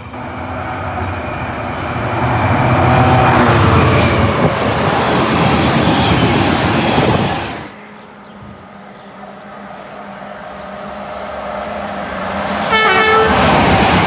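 A non-stopping train rushing through a station at speed, a loud rush of wheels and air that builds and then cuts off suddenly about halfway in. Another train approaches with a rising rumble and sounds its horn briefly near the end, followed by the loud rush of it passing.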